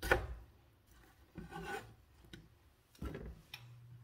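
A chef's knife strikes once on a plastic cutting board, then scrapes across the board a couple of times as diced potato is gathered up. A low steady hum starts near the end.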